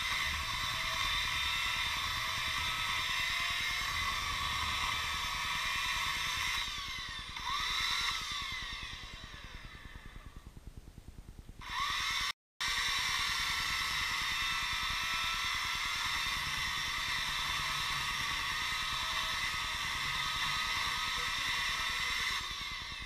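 Chainsaw running at full speed as it cuts through a dry apricot stump and its roots. About seven seconds in it eases off, revs up once and winds down. After a brief break halfway through it runs at full speed again, easing off near the end.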